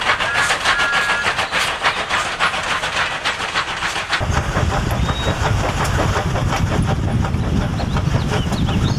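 Steam locomotive sound effects: a fast, regular beat of chuffs and rail clicks with steam hiss, and two short high tones near the start. About four seconds in, the sound cuts to a deeper rumble under the same beat.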